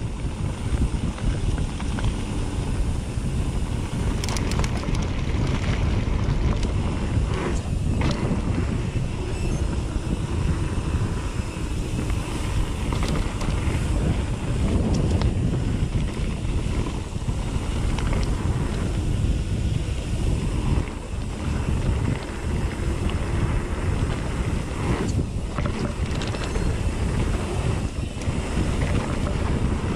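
Wind buffeting the microphone of a camera riding on a mountain bike, with dense low rumble and hiss from the moving bike. A few sharp knocks come through, near the start and again later, as the bike hits bumps on the trail.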